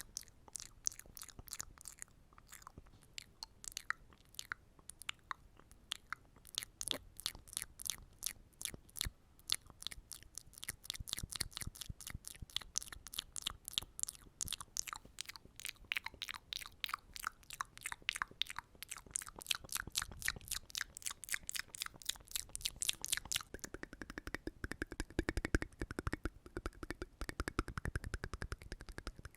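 Close-miked ASMR mouth sounds: a run of quick wet mouth clicks and smacks. They come faster after about ten seconds and turn denser and fuller near the end.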